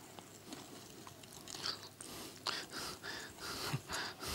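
Wire balloon whisk beating dry flour and cocoa powder in a glass bowl: soft, scratchy, rhythmic strokes, faint at first and louder from about halfway, at roughly two to three strokes a second.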